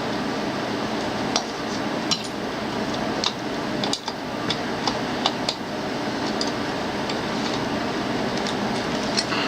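Scattered sharp metallic clinks and taps from water cooler parts being worked by hand as the copper tubing is twisted off, over a steady background noise.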